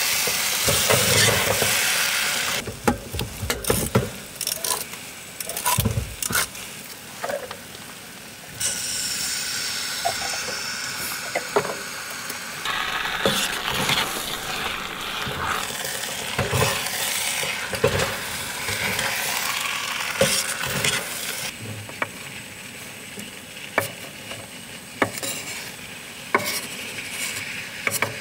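Food sizzling in a pot on a propane camp stove while a utensil stirs it, clinking and knocking against the pot many times. The sizzling hiss changes in strength abruptly several times.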